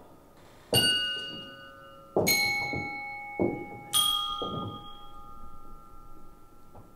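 A metal bell struck three times, about a second and a half apart, each stroke ringing on and slowly fading. A few dull knocks sound between the strokes.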